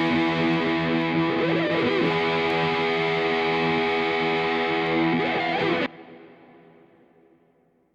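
Background music: sustained chords on a distorted electric guitar that stop abruptly about six seconds in, then ring out and fade to silence.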